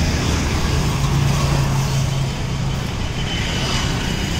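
Road traffic: car engines running and tyre noise, with a low engine hum standing out for about a second, starting about a second in.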